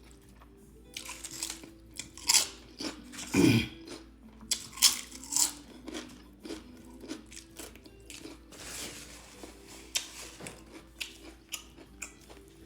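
Close-miked biting and crunchy chewing of food, in irregular crackly bites, over faint background music. A short low hum of a voice comes about three and a half seconds in.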